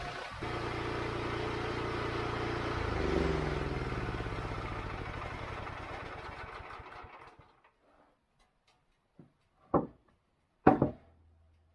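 Wood-Mizer LX25 sawmill's gas engine running, then winding down in pitch and stopping about seven seconds in. A few loud, sharp knocks follow near the end.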